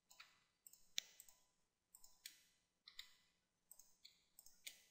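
Faint, irregular clicks of a computer mouse and keyboard, about ten spread unevenly over a few seconds, against near silence.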